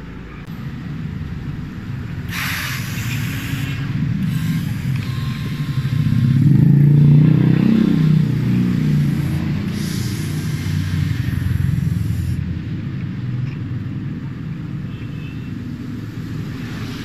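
Road traffic passing close by. The low engine and tyre rumble swells to its loudest about seven seconds in as a car goes past, then eases off.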